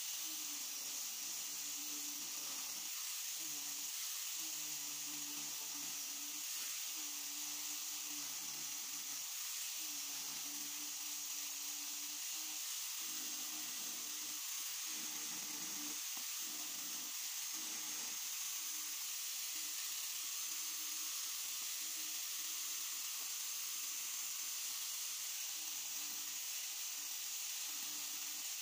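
Handheld angle grinder with a sanding disc, running steadily as it sands and rounds the edges of small palochina (pine) wood pieces, with a steady hiss throughout.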